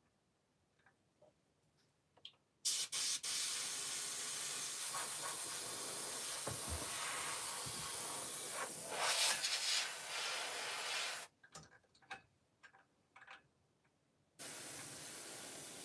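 Compressed air from an airbrush setup hissing hard for about eight seconds, with a louder surge near the end of the rush, then cutting off suddenly. The air pressure is set at 40 PSI instead of the intended 20. A steadier, quieter hiss with a low hum starts near the end.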